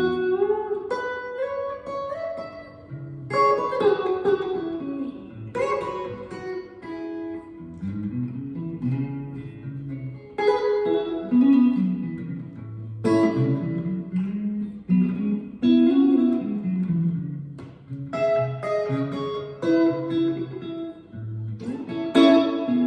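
Single-coil electric guitar playing a melodic run of single notes and chords, with some notes bent in pitch.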